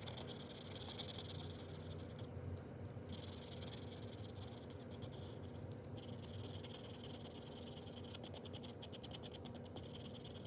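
Oil-based paint pen scratching back and forth on a pot's surface, a faint, steady scratchy rubbing with brief pauses between strokes.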